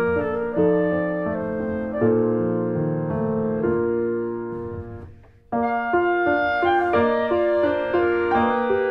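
Background piano music with held notes. It fades almost to nothing about five seconds in, then a new passage starts abruptly.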